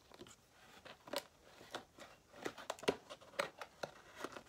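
Cardboard and paper packaging handled by hand: irregular rustles, crinkles and small clicks, the sharpest about three seconds in.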